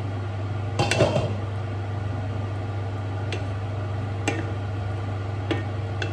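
A spoon knocking and scraping against a cooking pan while a chicken curry is stirred. A cluster of clatters comes about a second in, then single light knocks about every second, over a steady low hum.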